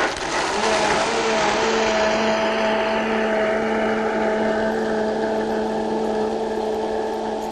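High-speed countertop blender running at full speed, blending hot water, cooked brown rice and cashews into rice milk: a loud, steady motor hum with a rushing hiss on top. The hiss eases over the first few seconds as the mixture grinds smooth.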